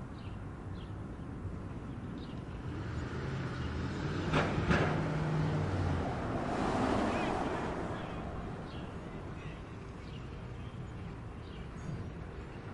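Outdoor industrial traffic ambience: a steady distant rumble, with a vehicle passing from left to right. Its engine hum and tyre noise build to a peak about four to seven seconds in, then fade back into the background.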